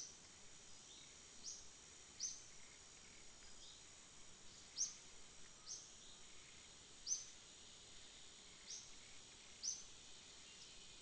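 Hot oil sizzling faintly as breaded chicken half-moon patties deep-fry, a steady high hiss with short, sharp high chirps every second or so.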